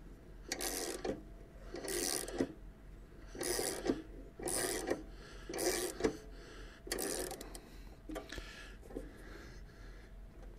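Socket ratchet clicking in a run of back-and-forth strokes, about one a second, as it turns the forcing screw of a three-jaw puller to draw the blade hub off a lawnmower's crankshaft. The strokes grow fainter and sparser near the end.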